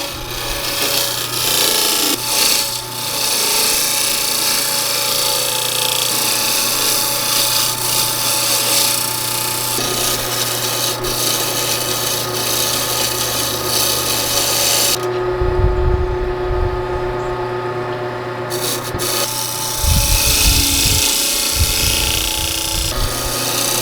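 Wood lathe spinning a cedar bowl blank while a turning tool cuts into it, a steady scraping hiss over the lathe's motor hum. About two-thirds of the way through, the cutting stops for a few seconds, leaving the motor hum and a few low thumps, then starts again.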